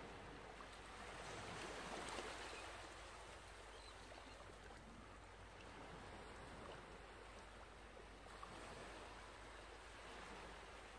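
Faint rustling of denim and cotton fabric being handled as a lined bag is pulled right side out through its turning opening, a little louder about two seconds in.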